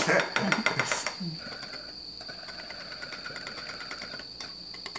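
Wire whisk beating egg mixture in a glass bowl: a quick run of clicks against the glass, then a fast, steady rattle for about three seconds, ending in a few more taps.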